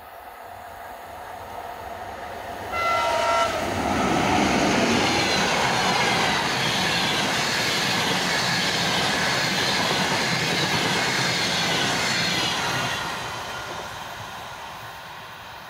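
A ChS4 electric locomotive hauling a passenger train sounds one short horn blast about three seconds in, then passes close by with loud rolling wheel noise from the coaches. The noise fades as the train moves away near the end.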